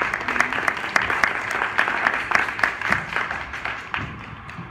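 Audience applauding, with dense hand claps that die away near the end.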